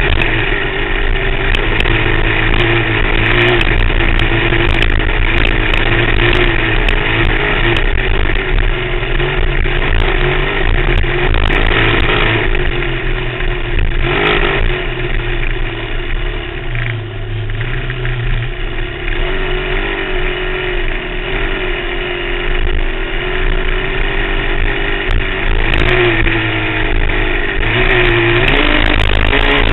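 Off-road vehicle engine running hard across sand, its pitch rising and falling with the throttle, easing off somewhat in the middle before picking up again near the end. Heavy wind rush on the vehicle-mounted camera's microphone.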